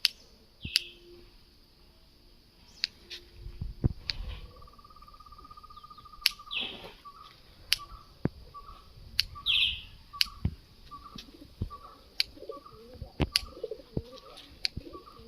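Birds chirping and calling: short high chirps, a trill lasting a couple of seconds, then a bird repeating a short note about twice a second. Sharp clicks come every second or so throughout.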